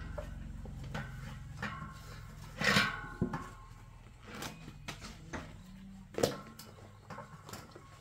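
Irregular knocks and clatter of objects being handled, over a low steady hum. The loudest clatter comes about two and a half seconds in, and a sharp knock just after six seconds.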